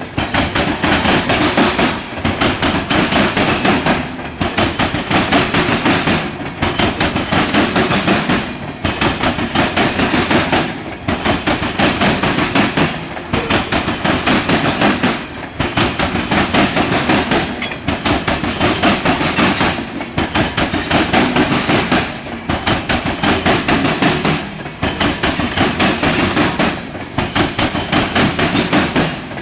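Norfolk Southern freight train's cars rolling past close by, the wheels clacking steadily, with a regular dip in loudness about every two seconds as each car goes by.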